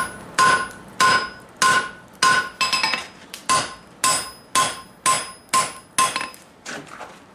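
A blacksmith's hand hammer strikes red-hot iron on a steel anvil, drawing the bar out. The blows fall in a steady rhythm of about two a second, each with a metallic ring, and a couple of lighter blows come near the end.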